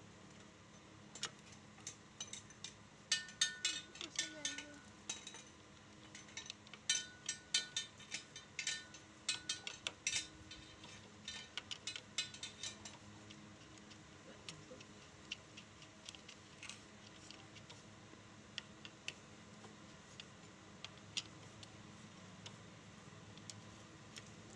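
Metal clicks and clinks of a socket spanner working the spring bolts of a motorcycle's clutch pressure plate. The clicks come in two quick runs in the first half, some with a short metallic ring, then thin out to scattered ticks.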